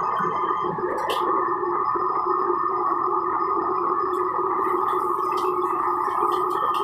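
Steady rushing of a commercial wok range: the gas burners running with water pouring from the range's tap. A metal ladle clinks against the wok about a second in, with a few lighter clinks later.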